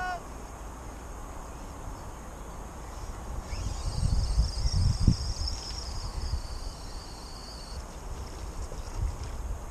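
Wind buffeting the microphone in low rumbling gusts, heaviest about four to five seconds in, while a high, slightly wavering whirr runs for about four seconds through the middle.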